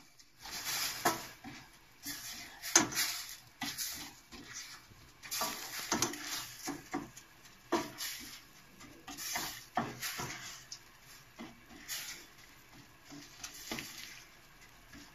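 A spoon stirring risotto in a metal pan, scraping and knocking against the pan in irregular strokes about every second or two.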